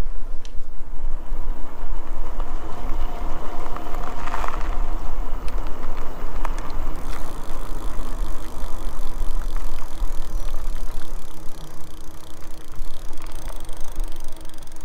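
Fat-tire electric bike under way on pavement, heard from low on the frame: heavy wind rumble on the microphone over the steady hum of the fat tyres, chain and Bafang mid-drive motor. A few sharp clicks and rattles from the drivetrain.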